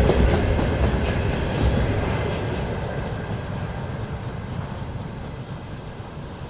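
A container freight train's wagons rolling past, with wheel clatter over the rail joints and a low rumble. The sound fades steadily as the train moves away.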